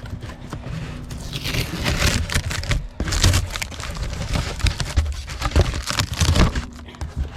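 Packaging being wrestled open by hand: irregular scraping, crinkling and crackling with many quick, sharp rustles.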